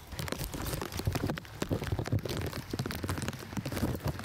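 Footsteps crunching over debris and brush, a dense, irregular crackling with low thumps mixed in, along with rustle from a handheld camera on the move.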